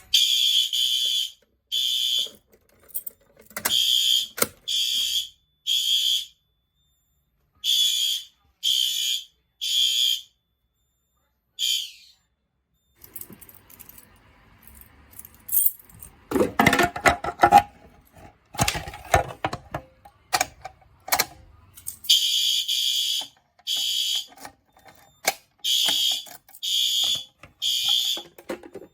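Fire alarm horn sounding in short loud beeps, mostly in groups of three with a pause between groups (the temporal-three evacuation pattern), as devices are set off one by one during a walk test. About halfway through the beeping stops for a few seconds and there is some clattering handling noise before the horn starts again.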